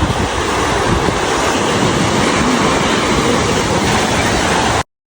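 Steady rush of ocean surf with wind on the microphone, cutting off suddenly near the end.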